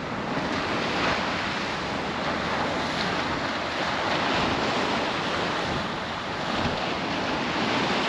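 Sea surf washing on the shore, mixed with wind on the microphone: a steady rush of noise.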